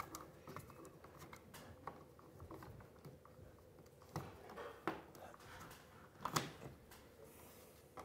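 Faint scraping and clicking of a hand screwdriver turning a screw in a plastic smoke-detector mounting plate, with a few sharper clicks in the second half.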